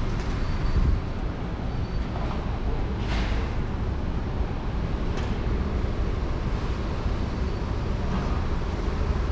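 Steady low rumble of vehicle traffic, with a brief hiss about three seconds in.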